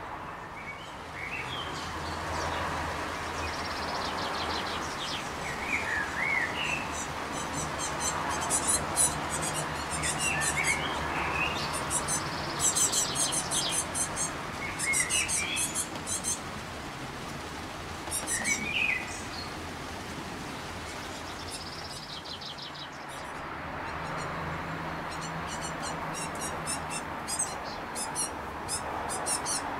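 Great tit fledglings giving rapid, very high-pitched begging calls in repeated bursts, with a few lower, curving chirps among them in the first two-thirds.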